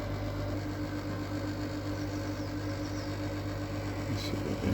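A steady low machine hum with a constant pitch, and a faint tick about four seconds in.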